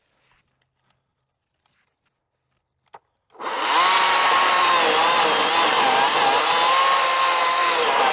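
Near silence for about three seconds, then a chainsaw comes in loud, running steadily under load while cutting wood, its whine wavering slightly in pitch.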